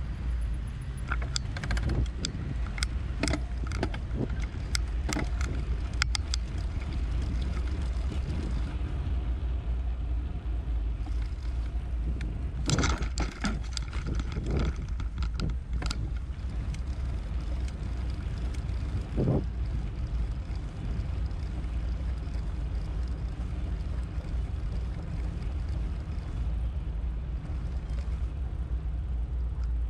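Bicycle riding: a steady low rumble of wind and rolling, with bursts of rattling clicks near the start and again about halfway through, and a single knock a few seconds later.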